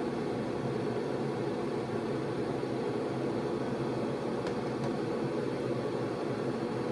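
Ventilation fan running steadily to clear spray-primer fumes from the room, with two faint clicks about four and a half seconds in.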